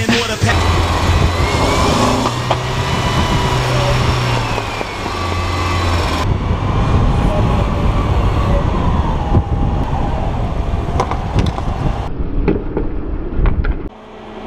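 Loud wind rush and road noise from a fast downhill longboard run, with faint wavering whines over the rush. The sound drops sharply to a much quieter scene about 14 seconds in.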